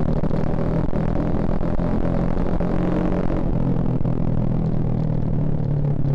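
2011 Suzuki Shogun Axelo R's single-cylinder four-stroke engine running at nearly steady revs under way, its pitch dipping slightly about halfway through, with wind and road noise.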